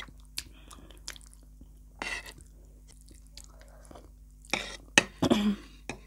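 Close-up eating sounds: chewing a mouthful of instant noodles, with scattered clicks and scrapes of a metal fork and spoon against a ceramic plate. The sounds grow louder and busier near the end.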